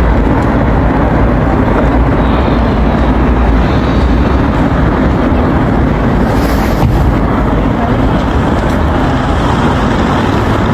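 Subway train in motion: a steady, loud rumble of wheels on rails and running gear.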